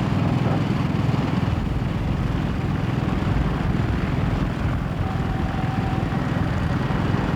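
Helicopter running steadily, with a rapid low flutter of rotor and engine noise.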